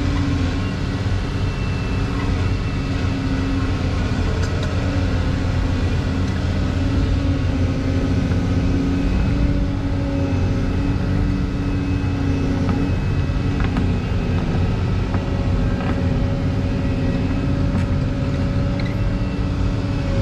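Heavy construction machine's diesel engine running steadily at working speed, a continuous low drone whose pitch shifts slightly about two-thirds of the way through.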